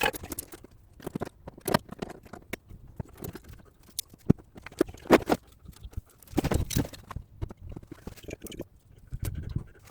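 Irregular taps, knocks and clicks of hand tools working on the dented steel panel of a car's rear wheel arch during paintless dent repair, a few strikes louder than the rest.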